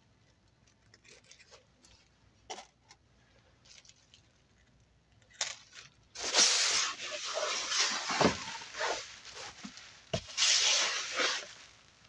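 Faint small clicks of pins being pushed through the doily into the board, then, from about six seconds in, loud crinkling and rustling of the plastic sheeting under the doily as it is handled.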